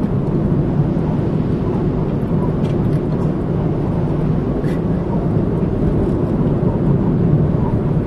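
Steady low rumble of a car driving along a city street: tyre and engine noise at cruising speed.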